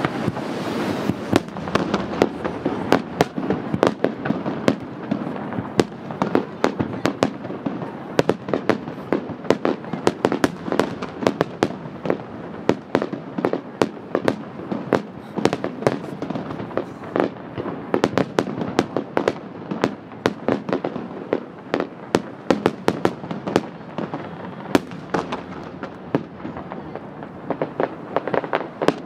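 Aerial firework shells bursting over the sea in quick, irregular succession: many sharp bangs, several a second, over a continuous din from the bursts before them.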